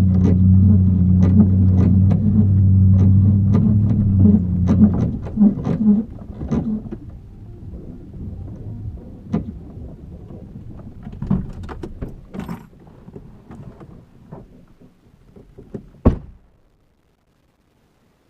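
An engine running steadily, then stopping about five seconds in, amid many sharp cracks and knocks, with one loud knock near the end.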